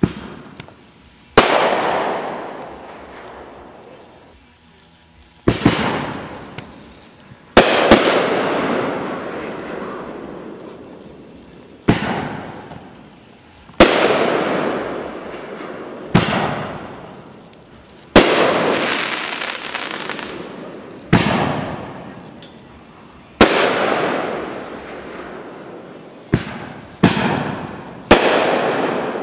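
Consumer firework artillery shells fired one after another, about six in all. Each one gives a launch thump from the mortar tube and then a louder bang about two seconds later as the shell bursts, and each bang trails off over a few seconds.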